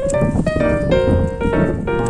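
Background music: a piano melody with a steady beat.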